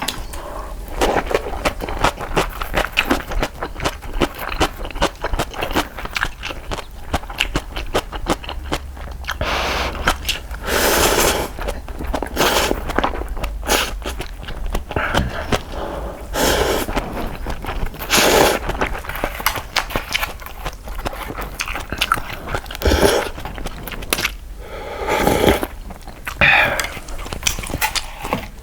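Close-miked eating of instant cup ramen: rapid wet chewing and mouth clicks throughout, broken by a few longer slurps of noodles or broth, about three of them.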